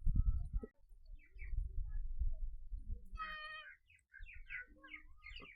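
Small birds chirping repeatedly, with one longer, louder call about three seconds in, over bursts of low rumbling noise.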